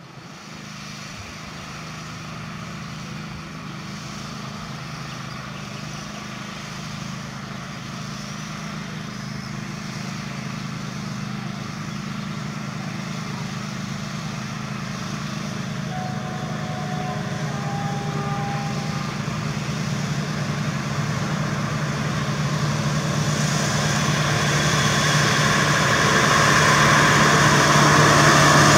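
SM42 (Newag 6Dg) diesel shunting locomotive pulling a freight train of flat wagons and tank cars. Its steady diesel engine drone grows louder as it approaches, and wheel and rail noise builds over the last few seconds.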